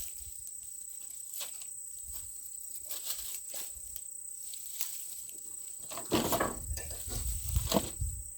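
Footsteps and light handling noise under a steady high-pitched insect drone. About six seconds in, louder knocks and rustling start.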